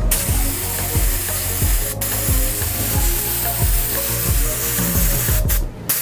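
Airbrush hissing steadily as it sprays the last of the paint in its cup onto a T-shirt, the air cutting off for a moment about two seconds in and again briefly near the end as the trigger is let go. Background music with a steady beat runs underneath.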